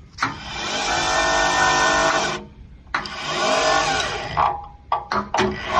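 Motor of an electric-hydraulic hose and pipe crimping machine running in two long bursts of a couple of seconds each, then a few short bursts, as a fitting is pressed.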